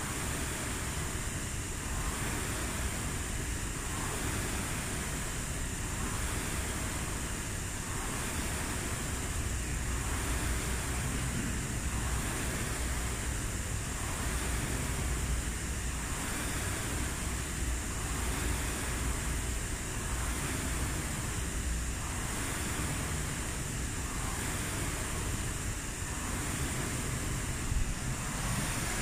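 Air rowing machine's fan flywheel whooshing with each stroke, rising and falling in a steady rhythm of about one pull every two seconds under hard, continuous rowing.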